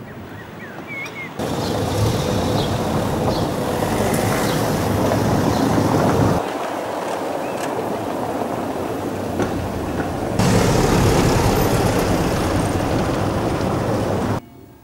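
Steady outdoor rush of wind on the microphone mixed with low street noise. Its loudness jumps up or down abruptly about a second and a half in, about halfway through, again about two-thirds through, and near the end.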